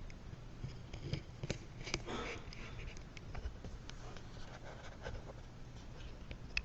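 Faint handling noise of trading card boxes and packs on a table: scattered light clicks, a short rustle about two seconds in, and a sharper click near the end.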